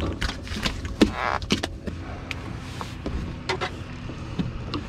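Knocks, clicks and rustles of handling a landing net and a freshly caught bass on a bass boat's deck, with a sharp knock about a second in, over a steady low hum.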